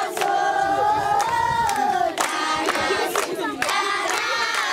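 A large group of children singing a praise song together in unison, the tune carried in long held notes, with sharp claps now and then.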